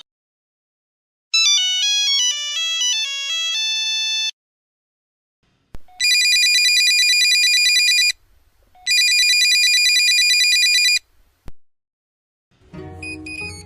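Mobile phone ringtones played one after another: first a short, simple beeping melody of stepping notes, then two long trilling electronic rings of about two seconds each with a short gap between them. Near the end a fuller, multi-voiced musical ringtone begins.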